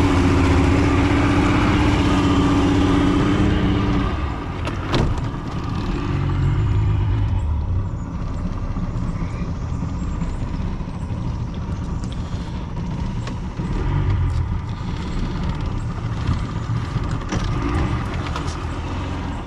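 Yamaha 50 tiller outboard motor running under way, then throttled back about four seconds in to a steady low idle as the boat eases up to the bank. A single knock sounds about a second after the throttle comes off.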